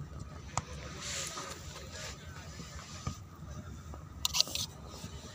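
Applicator dauber scraping and clicking against the metal rim of an open tin of uPVC solvent cement, with a quick cluster of sharp clicks a little past four seconds in.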